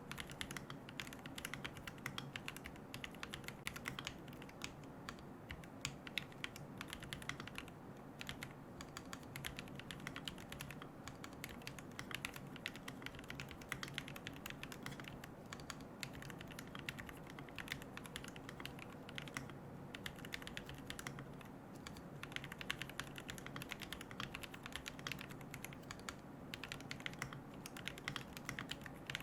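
Mechanical keyboard with Gateron Moon Landing switches, a carbon plate, no foam and MilkyWay Poker keycaps, typed on in a fast, steady run of keystrokes.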